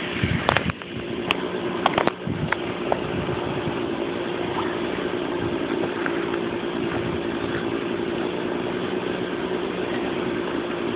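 An engine idling steadily with an even hum, and a few sharp knocks in the first two seconds.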